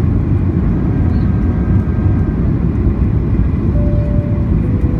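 Steady low cabin rumble of a Boeing 737-800 on approach, its CFM56 engines and the airflow heard from a window seat beside the wing. A faint whine comes in about four seconds in and steps slightly lower near the end.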